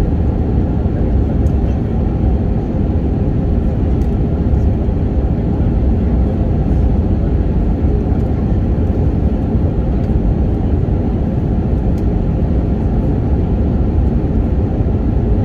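Steady cabin noise of an airliner in flight: a constant roar of engines and airflow, heaviest in the low range, with a faint steady hum.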